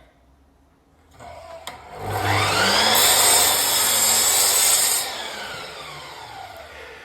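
Mitre saw starting up with a rising whine, its blade cutting through cornice moulding for about two seconds, then spinning down with a falling whine after the cut.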